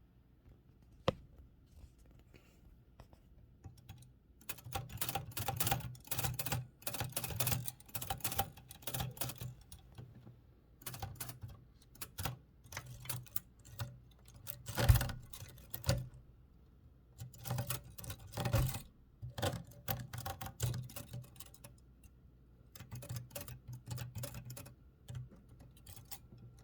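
1960 Olympia SM-4 manual typewriter with its keys being pressed and its typebars clacking in quick runs of strokes separated by short pauses. The loudest single strike comes about fifteen seconds in.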